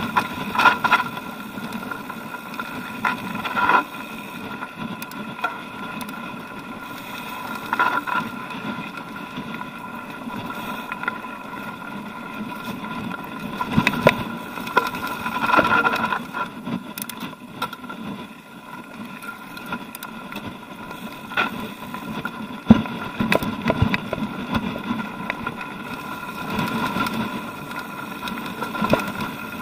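Mountain bike ridden down a loose, stony singletrack: tyres crunching and rumbling over gravel and rocks, with sharp knocks and rattles from the bike at the bigger bumps, several times. A steady high whine runs under it throughout.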